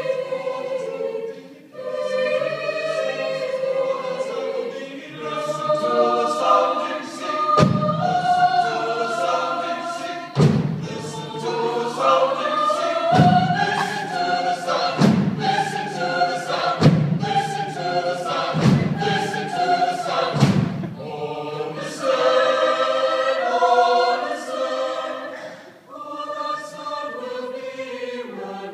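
Mixed chamber choir singing sustained chords in several parts. Through the middle of the passage, seven deep thuds are struck about every two seconds under the voices.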